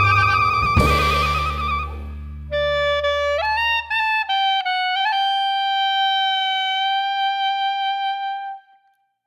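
Background music: a band fades out, then a single melodic instrument plays a short rising phrase and holds one long note that ends near the close.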